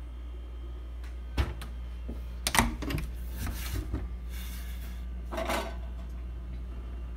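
A sharp knock, then a cluster of clicks and knocks, followed by two short rustling bursts, over a steady low hum.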